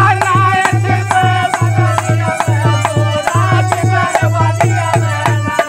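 Men singing a folk bhajan loudly together, their voices rising and falling, over a dholak drum beating a steady rhythm with sharp rattling percussion strokes.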